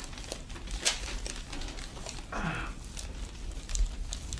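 Hands working over a patient's back during pre-adjustment soft tissue work: soft rustling and crinkling, a sharp click just under a second in, and a short groan falling in pitch from the patient about halfway through.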